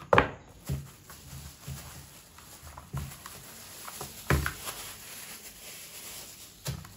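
Clear plastic packaging bag crinkling and rustling as a ring light is pulled out of it and the bag is crumpled. Several knocks of the cardboard box and the ring light on the table, the loudest just after the start.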